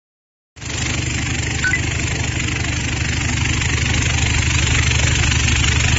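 Vibratory wheel polishing machine running: a steady, evenly pulsing low hum with a hiss over it, starting suddenly about half a second in.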